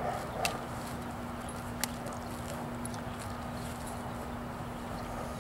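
A saddled horse lowering itself to lie down on grass: two faint sharp knocks, about half a second and two seconds in, over a steady hiss and a low hum.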